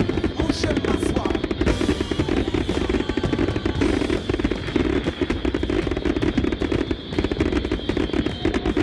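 A fireworks display going off in a rapid, continuous barrage of bangs and crackles, with no gaps.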